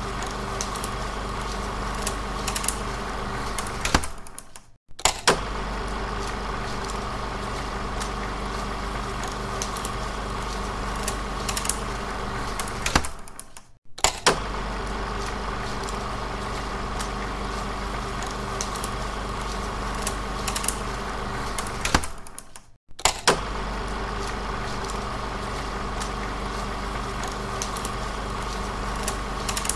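16mm film projector running: a steady motor hum with clattering ticks from the film mechanism. The recording loops, fading out and restarting with a click about every nine seconds.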